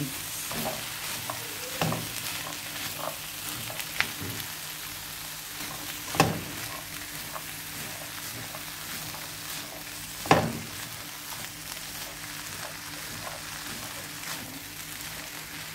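Kidney beans and chopped vegetables sizzling in a non-stick frying pan as they are stirred with a spatula: a steady frying hiss, with a few sharp knocks of the spatula against the pan, the loudest about six and ten seconds in.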